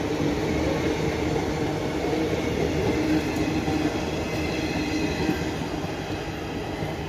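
Passenger coaches of a departing express train rolling past on the rails: a steady rumble of wheels on track with a steady whining tone over it, easing off slightly near the end as the last coaches draw away.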